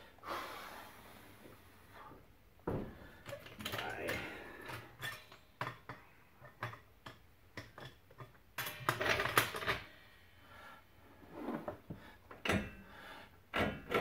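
Hand tools and steel suspension parts clinking and knocking as the front suspension is reassembled after a strut replacement. It is a string of short, irregular clicks and clanks, with bunches of louder knocks about three seconds in, around nine seconds and near the end.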